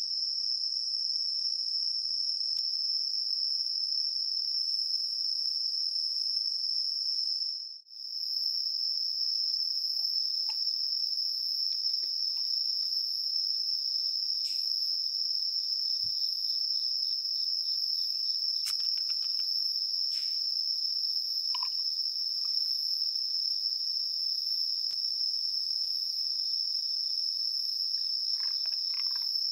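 Night chorus of crickets and other insects, a steady high-pitched trill that runs unbroken except for a short dropout about eight seconds in. Faint clicks and small knocks come now and then beneath it.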